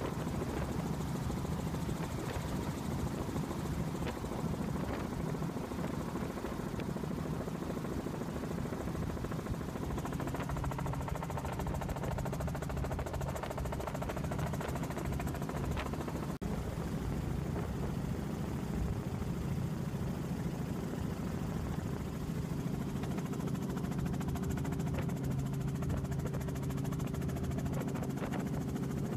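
Light helicopter's engine and rotor running steadily, heard from inside the cabin as a continuous low hum.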